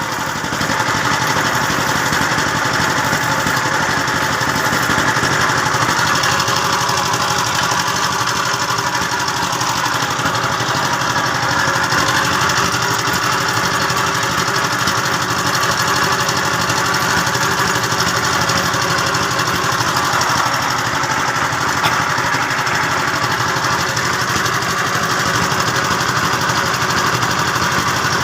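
A machine running steadily with a rapid, even flutter, like an engine or motor.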